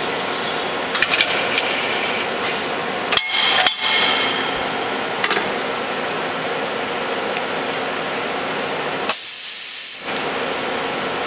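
Mazak SQT-10M CNC turning center running under power, a steady machine hum. A few light clicks come about a second in, two sharp clunks a little after three seconds, and a short burst of high hiss about nine seconds in.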